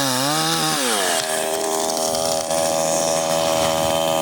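Chainsaw running, its pitch wavering for about the first second, then holding steady.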